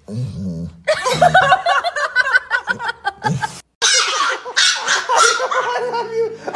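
People laughing in lively bursts, broken by a short gap about three and a half seconds in, after which laughing starts again.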